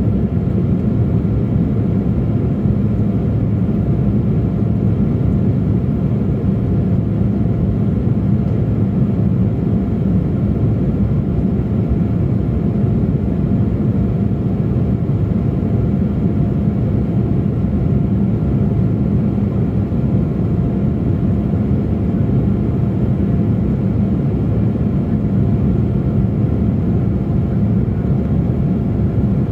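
Steady cabin drone inside a KLM Embraer E175 climbing after takeoff: low rumble of its GE CF34 turbofans and rushing air, heard at a window seat over the wing, with a faint steady hum above it.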